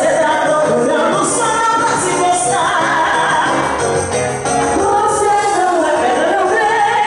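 Samba music: singing over a steady percussion beat, played loud.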